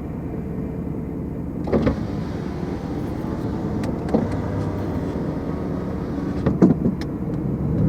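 A vehicle engine running steadily, with a few short, sharper sounds on top: about two seconds in, four seconds in, and near the end.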